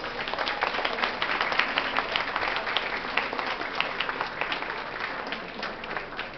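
An audience clapping, many hands together in a dense patter that starts as the music stops and slowly dies down.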